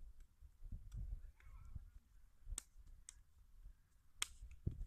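Several sharp slaps of hands striking and parrying against forearms in a hand-to-hand reverse-grip drill. They come at irregular intervals over a low rumble, the loudest about four seconds in.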